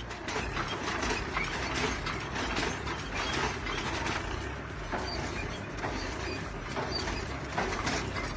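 Machinery running with a steady low drone under irregular metal clanking and rattling.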